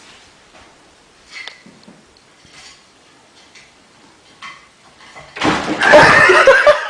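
A few faint knocks, then, about five and a half seconds in, a sudden loud clattering crash lasting about a second and a half.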